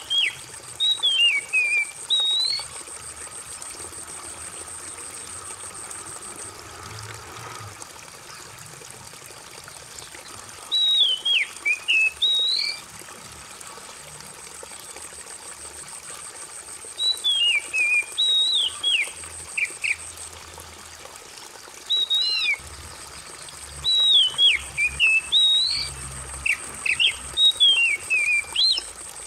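Oriental magpie-robin singing loud, whistled phrases that slide up and down, in about five bouts, over a steady trickle of running water. A faint high buzz comes and goes.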